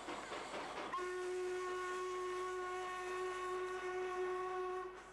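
Steam locomotive whistle: one long steady blast that starts about a second in and stops just before the end, over a hiss of steam.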